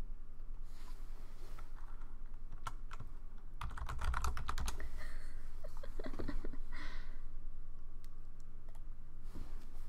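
Typing on a computer keyboard heard through a computer microphone: scattered key clicks, a quick run of keystrokes about four seconds in and a few more around six seconds, over a steady low electrical hum.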